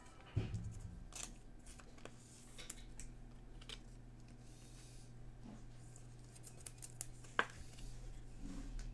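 A Topps Chrome trading card being handled and slid into a clear plastic sleeve and top loader: faint plastic scraping and light clicks, with a sharper click about seven seconds in. A steady low hum runs underneath.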